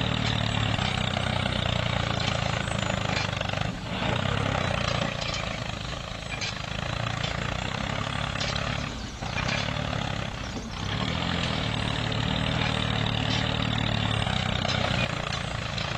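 Miniature tractor running steadily while pulling a spring-tine cultivator through sand, a continuous motor sound with a few brief dips in level.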